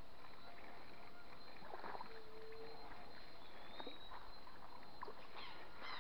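Quiet creekside outdoor ambience: a steady low hiss with a few faint clicks, a short steady tone about two seconds in and a brief rising chirp near four seconds.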